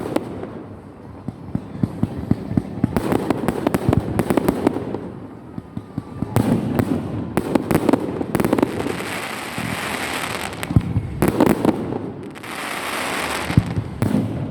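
Fireworks going off in quick volleys of sharp bangs, with two longer stretches of hissing crackle in the second half.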